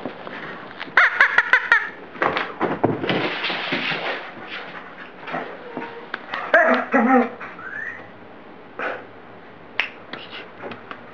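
Collie dog vocalizing in several short bursts of whines and grumbling calls, a higher one about a second in and lower, throatier ones about two thirds of the way through, with a short rising whine after them.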